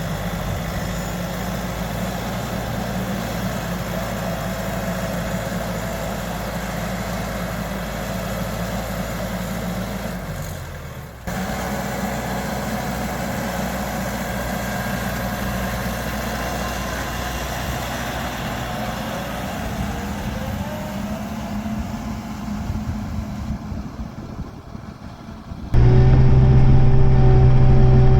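Kioti RX7320 utility tractor's diesel engine running steadily. It cuts out briefly about eleven seconds in. Near the end it becomes much louder, with a strong steady hum.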